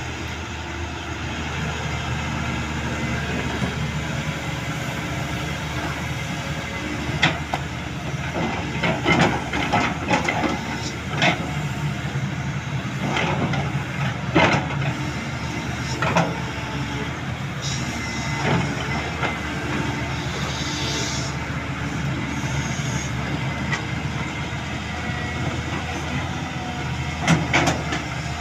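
Caterpillar 320D hydraulic excavator's diesel engine running steadily as the arm and bucket work in sand. It is broken by sharp clanks and knocks, many in the middle and a pair near the end, and a short hiss about twenty seconds in.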